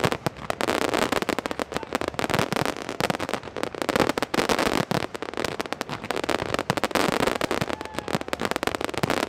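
Fireworks display: a dense, unbroken barrage of bangs and crackles, many shells bursting close together.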